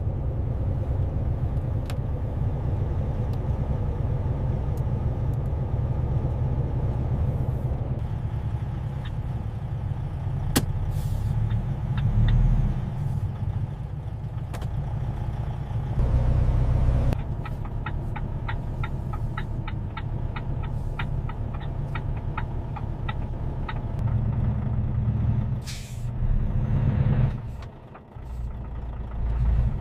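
Semi-truck engine running with a steady low rumble. A quick run of ticks comes in the middle, and a short air-brake hiss comes a few seconds before the end.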